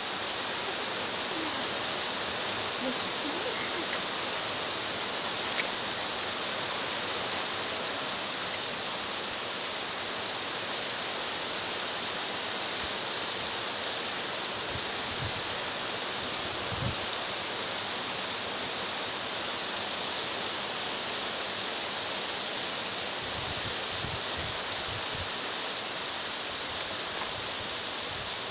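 Heavy rain pouring down, a steady, unbroken hiss of falling water.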